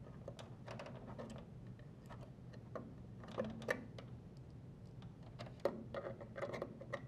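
Small irregular clicks and taps of needle-nose pliers and metal spade connectors against a dryer temperature switch as wire terminals are pushed onto it, a few sharper clicks past the middle, over a faint steady low hum.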